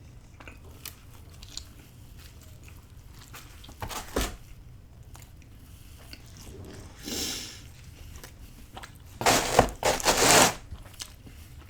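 A person eating pizza: quiet chewing with a few soft clicks, and a loud rushing noise lasting about a second some nine seconds in.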